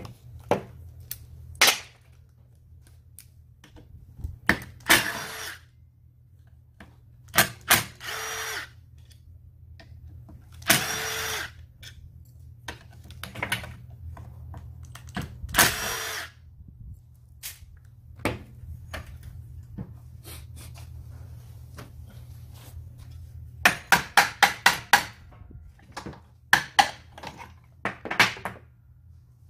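Cordless power driver whirring in four short runs, about a second each, as bolts are taken out of a brush cutter's clutch housing. Near the end come a quick row of about six mallet taps and then three more, with small clicks of parts being handled and a low steady hum underneath.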